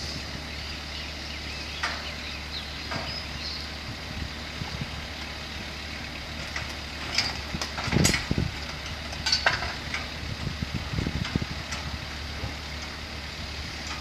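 Work vehicle's engine idling with a steady low hum, while a few sharp knocks and clanks come from the bracket fitting at the top of the pole, the loudest about eight seconds in.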